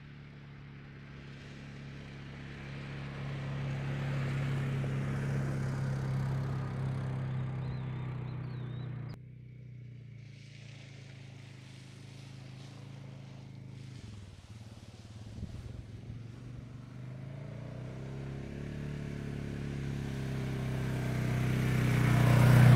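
An ATV engine runs as the quad rides toward the camera, growing louder. The sound drops suddenly about nine seconds in. The engine then builds again, its pitch rising and falling a little, and gets louder and louder until the ATV passes close by at the end.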